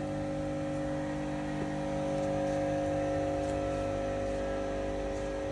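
ENSHU E130 vertical machining center running behind its closed enclosure: a steady mechanical hum holding several pitches.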